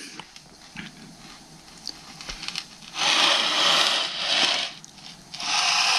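Rustling, crinkly noise in two stretches of about a second and a half each, the first starting about three seconds in and the second near the end.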